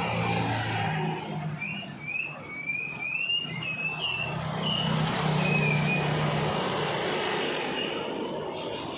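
Pleci (white-eye) birds giving a run of short, quick chirps for a few seconds, with a fainter chirp later, over a steady low motor-like hum.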